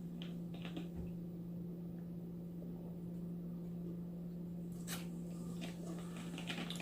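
Quiet room tone with a steady low hum, broken by a few faint clicks and one sharper click about five seconds in.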